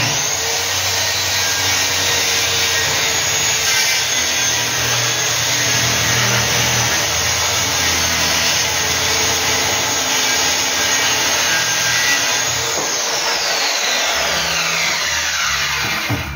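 Electric circular saw running through a long cut along a wooden plank, loud and continuous, with a high whine that slides down in pitch over the last few seconds before the saw stops.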